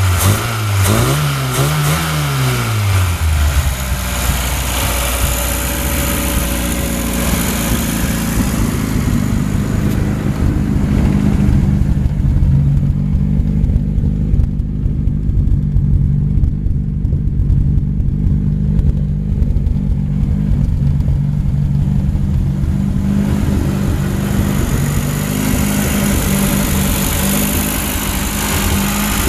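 Lada 2107's 1.6-litre four-cylinder engine revved up and down a few times at the start, then settling into a steady idle.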